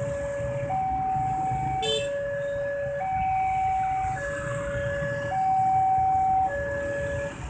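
Railway level-crossing alarm sounding a two-tone hi-lo signal, switching pitch about once a second while the barrier booms lift to reopen the road. Under it comes the low running of many idling motorcycle engines, with a brief sharp beep about two seconds in.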